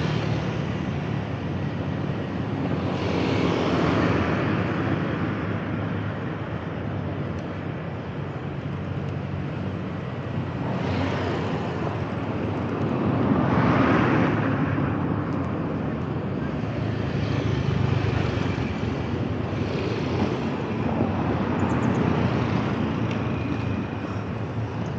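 Street traffic passing close by: vehicles swell and fade one after another, the loudest about halfway through, over a steady low engine hum.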